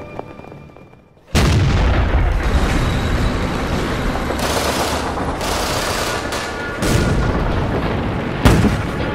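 Music fades out, then about a second in a loud din of battle cuts in: a dense low rumble with gunfire and blasts, the sharpest blast near the end.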